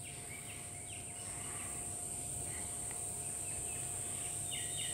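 Steady high-pitched insect drone, with a bird giving short downward chirps now and then and a quick run of about five chirps near the end.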